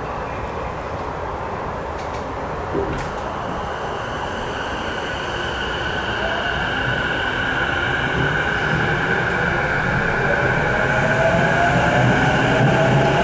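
Sotetsu 12000 series electric train heard on board as it pulls away: the inverter and traction motor whine rises in pitch as it gathers speed, over steady running noise that grows louder. A single knock about three seconds in.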